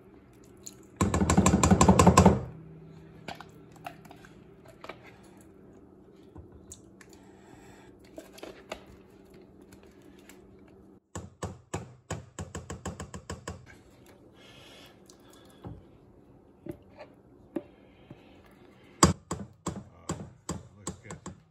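Ricotta being knocked out of a plastic tub into a stainless steel mixing bowl. A loud, rapid rattle of knocks about a second in, more short runs of quick knocks in the middle, and a spatula knocking against the bowl near the end.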